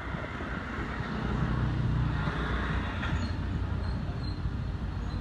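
Low rumble of a motor vehicle's engine going by. It grows louder about a second in and stays up.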